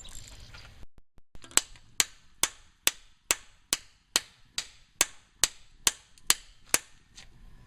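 Thirteen evenly spaced hammer blows on metal, about two a second, each ringing briefly: hammering to break loose the badly corroded cylinder-head bolts of a MerCruiser 3.0 engine.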